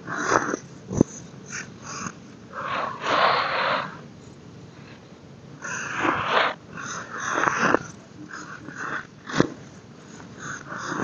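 Hands crushing and crumbling a pressed lump of baking soda over a tray of loose powder: crunchy, crackling stretches of crumbling with a few sharp snaps as pieces break.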